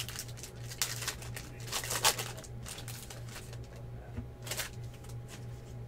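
Foil trading-card pack wrapper crinkling and tearing as it is opened and the cards are pulled out, in a few short bursts, the loudest about two seconds in. A steady low hum runs underneath.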